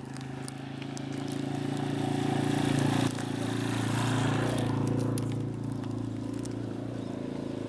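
A truck driving past, its engine hum growing louder to a peak about three seconds in and then slowly fading.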